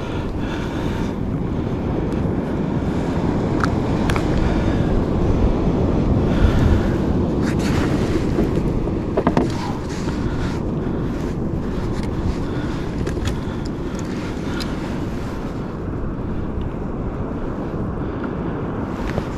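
Wind buffeting the microphone in a steady low rumble over open-ocean water, with a few sharp clicks or knocks scattered through it.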